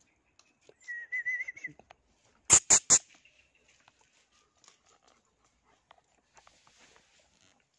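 German Shepherd dog giving three loud, sharp barks in quick succession, just after a brief high wavering whine.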